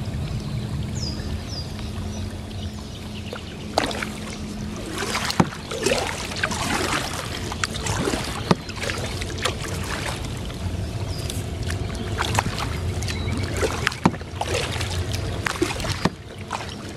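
Kayak moving along under an electric trolling motor: a steady low hum with water washing and splashing against the hull. From about four seconds in, irregular splashes and knocks come and go over the hum.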